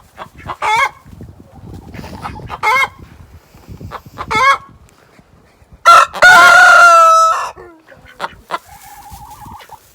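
Hen cackling: three short clucks a couple of seconds apart, then one loud, long drawn-out squawk about six seconds in. It is part of a long run of calls that the owner takes for the 'chicken song' (a hen's egg song).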